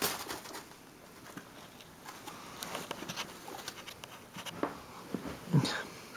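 Dutch guinea pigs munching apple pieces: small irregular crunching clicks and rustling in the bedding, with one louder bump about five and a half seconds in.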